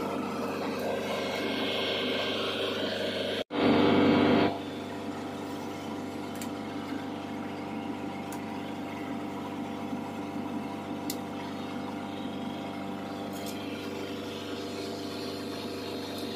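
Steady drone of running machinery, engine-like, with a constant hum. About three and a half seconds in it cuts out for an instant, comes back louder for about a second, then carries on a little quieter.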